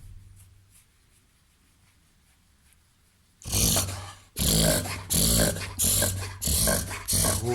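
A Labrador–golden retriever–Weimaraner cross dog reverse sneezing. About three and a half seconds in, a rapid run of loud, noisy pulls of air through the nose starts, about six in four seconds. This is a reverse sneeze: a spasm of the throat and soft palate that makes the dog inhale hard in quick succession.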